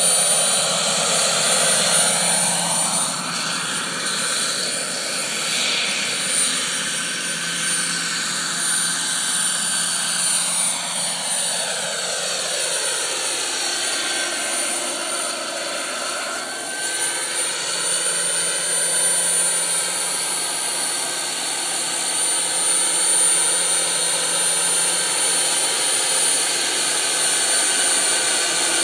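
Jakadofsky model turbine in a scale RC helicopter running steadily in flight: a high, steady turbine whine over rotor and exhaust noise. The lower tones sweep up and down slowly as the helicopter flies nearer and farther.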